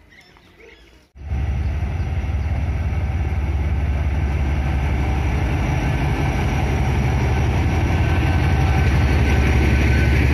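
Narrow-gauge ZDM diesel locomotive running close by as it hauls its coaches past, a loud, steady low diesel rumble that cuts in suddenly about a second in.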